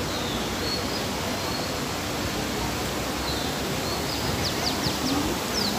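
Steady, even hiss of outdoor background noise, with a bird giving a quick run of about five high chirps about four and a half seconds in and a few faint thin whistles earlier.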